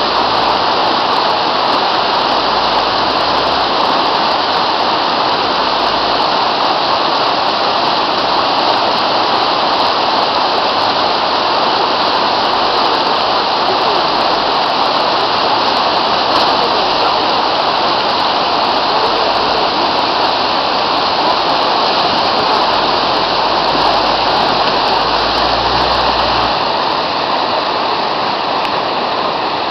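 River water rushing steadily at a ford, a loud even rush that eases a little near the end.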